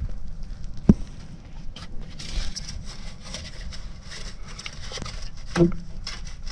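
Handling noise from hand work on a car's rear coil spring and suspension: scattered scraping and rustling clicks, a sharp knock about a second in, and another knock with a brief ringing tone near the end.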